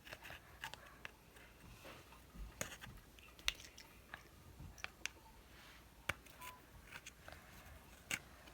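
Slime being mixed and handled: quiet, scattered small clicks and sticky scrapes at irregular moments.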